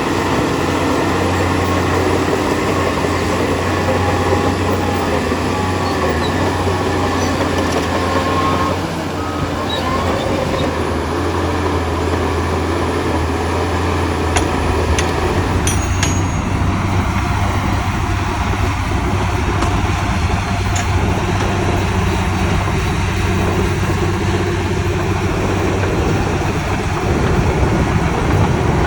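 Heavy diesel engine of earthmoving machinery running steadily under load, with a strong low hum; the sound shifts abruptly about sixteen seconds in.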